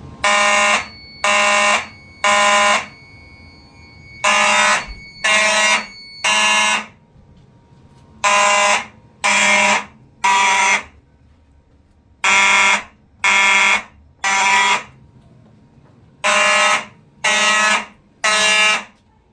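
Simplex 4903-series mechanical fire alarm horns blaring in the temporal-three (Code 3) evacuation pattern: three buzzy blasts about a second apart, then a short pause, repeating five times.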